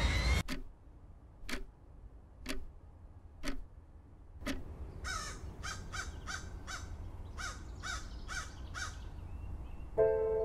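Five sharp clock ticks, one a second, followed by a crow cawing about nine times in quick succession. Near the end a held musical chord comes in.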